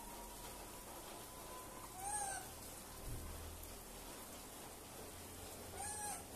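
Two short calls from a macaque monkey, each rising and then falling in pitch, about four seconds apart, over a steady background hiss.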